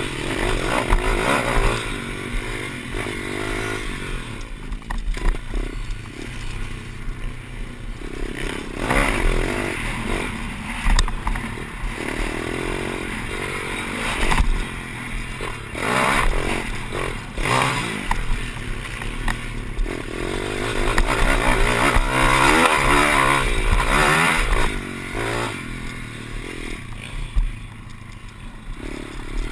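Pit bike's small single-cylinder four-stroke engine being ridden hard, its revs rising and falling again and again, heard from on board the bike.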